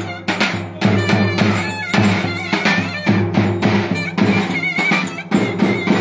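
Davul and clarinet playing a Turkish folk dance tune: the big double-headed drum beats a steady rhythm under the clarinet's melody.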